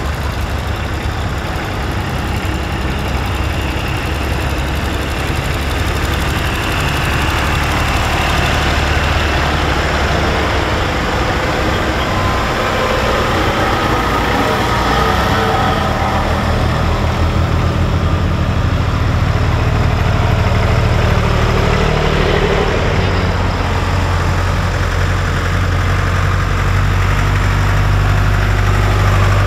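Diesel farm tractor engines running as tractors drive slowly past, a steady low engine hum that grows louder near the end as one comes close.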